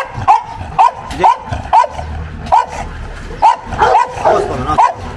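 A grey bully-type dog barking repeatedly in short, loud barks, about two a second.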